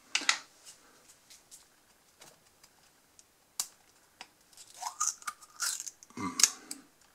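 A glass barbecue-sauce bottle being opened by hand: clicks and scrapes as the plastic cap comes off, then grating twists of the metal screw lid with a short squeak about five seconds in. The loudest crack comes as the lid breaks free near the end.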